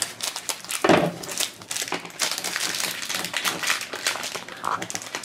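Hard plastic toy capsule, a cheese-wheel blind pack, being handled and worked open by hand. It gives irregular crinkling, ticking and scraping of plastic, with one louder rasp about a second in.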